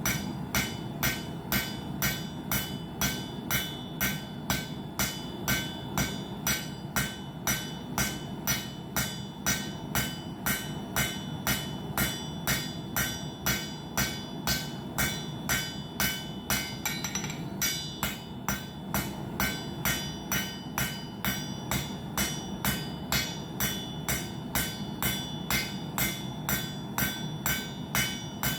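Hammer blows on hot steel over an anvil, about two strikes a second at a steady pace, each blow ringing, as the end of the bar is drawn out to a taper.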